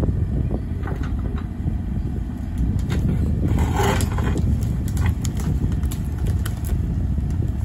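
Bobcat E35 mini excavator's diesel engine running steadily under hydraulic work, with scattered knocks and cracks as the bucket digs packed sticks and mud out of a beaver dam. The knocks are thickest around the middle.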